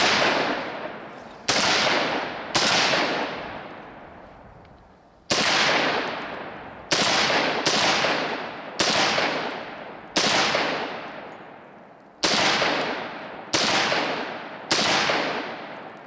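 A .300 Blackout AR pistol firing semi-automatic, about a dozen shots at an uneven pace, some half a second apart and others two or three seconds apart. Each sharp report is followed by a long echo that fades over a second or more.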